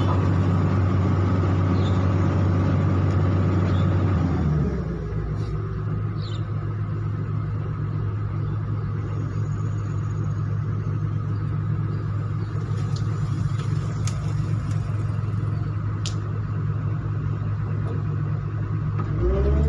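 Long-arm excavator's diesel engine running, heard from inside the cab. About four seconds in it drops to a lower speed and runs on there, then revs back up near the end.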